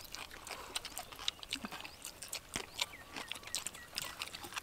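People eating noodles with chopsticks: a string of short, irregular clicks and taps of chopsticks on bowls, mixed with chewing and slurping.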